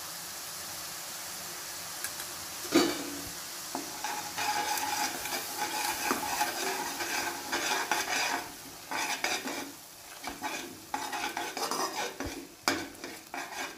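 A metal spatula stirring and scraping a thick tomato and chilli-powder masala frying in oil in a metal kadai, the masala sizzling. There is steady sizzling alone at first, a single clack about three seconds in, then irregular scraping strokes and light knocks of the spatula against the pan from about four seconds in.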